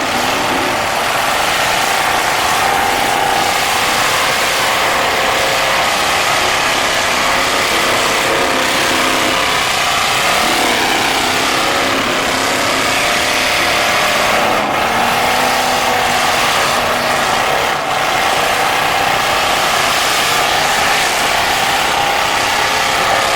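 Several stock cars' engines running and revving at once, a steady loud din of overlapping engine notes that rise and fall.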